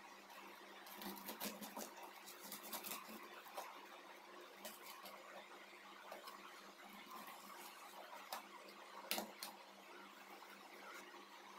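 Knife cutting through crisp toasted sandwich bread on a stainless steel tray: faint scattered crunches and scrapes, busiest in the first few seconds, with one sharper click about nine seconds in.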